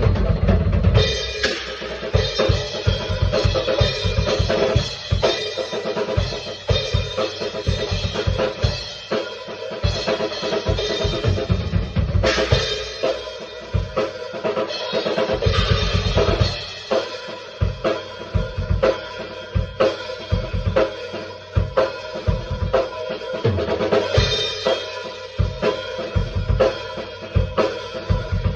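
Drum kit played freestyle, with busy kick and snare hits throughout.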